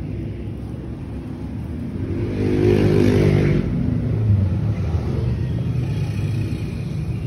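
Steady low rumble of a motor vehicle's engine, swelling louder for a second or two about two seconds in as it revs or passes, then settling back to a steady drone.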